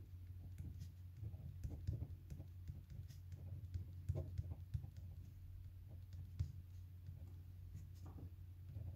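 Pen writing on paper: faint, irregular scratches and taps of handwritten strokes over a steady low hum.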